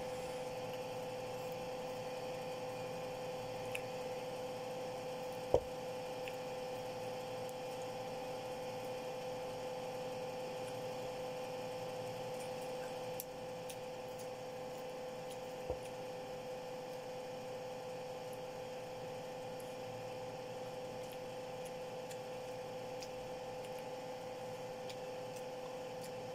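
A steady electrical hum, one low tone with fainter higher tones, with a few soft clicks and taps over it and one sharp tap about five and a half seconds in. The hum steps down a little in level about halfway through.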